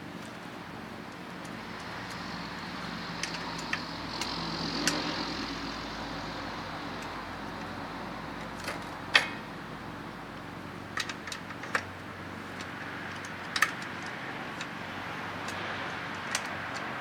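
Scattered sharp clicks and knocks of hand work on an e-bike's wheel as it is being taken off, the loudest about nine seconds in. Under them a steady low hum, with a broader rumble that swells and fades over a few seconds near the start, like a passing vehicle.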